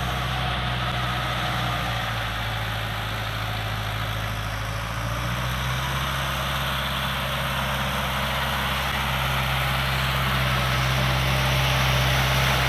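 Sonalika Tiger tractor's diesel engine running steadily under load, driving a rotavator that churns through the soil in low-range fourth gear. The engine grows louder near the end as the tractor comes closer.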